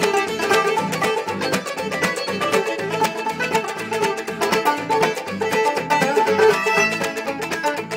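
Old-time string band playing a lively tune: fiddle bowing over a clawhammer banjo, with a guitar behind.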